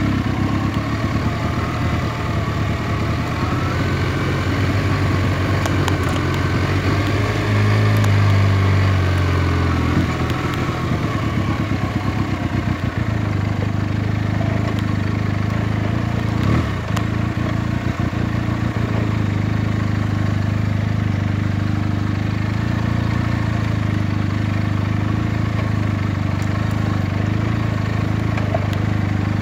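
Benelli TNT 300 parallel-twin motorcycle engine running steadily while riding a dirt track, with a brief rise in revs about eight seconds in.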